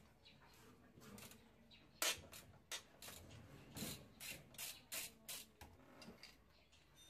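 Hand ratchet clicking in short runs of ticks as it is swung back and forth to loosen the throttle body's mounting nuts. There is a sharp single click about two seconds in, then a quicker run of clicks a little past the middle.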